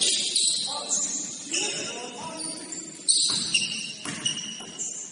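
Basketball game in a gym: short high-pitched squeaks of sneakers on the court floor, several in a row, with a ball bouncing and players' voices.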